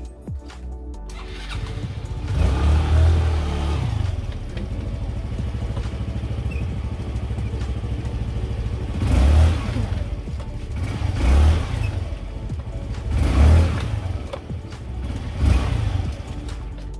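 Yamaha Mio MXi 125 Fi scooter's single-cylinder four-stroke engine starting about a second in and running. The throttle is blipped: one longer rev, then four short ones about two seconds apart, each rising and falling back.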